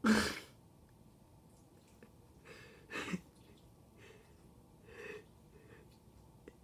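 Short noisy breaths close to the microphone: a sharp one at the start, then several fainter ones about two and a half to three seconds in and again near five seconds.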